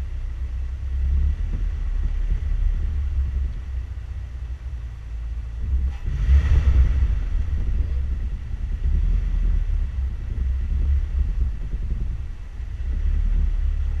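Four-wheel-drive vehicle's engine rumbling low and steady as it crawls over rock ledges, with a louder surge of noise about six and a half seconds in.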